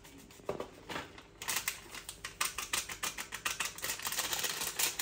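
A couple of knocks, then from about a second and a half in a fast, even run of sharp taps, roughly eight to ten a second.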